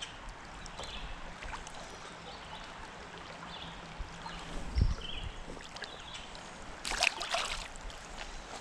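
River water running and rippling around a wading angler, with a dull bump about five seconds in and a brief splash about seven seconds in.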